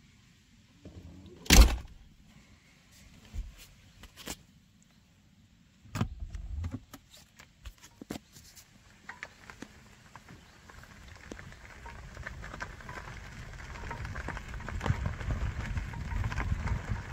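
A few sharp knocks and clicks, the loudest about one and a half seconds in, from the camera being handled. Then, from about nine seconds on, a Citroën 2CV's air-cooled flat-twin engine and its tyres on gravel, the running noise growing steadily louder as the car drives along.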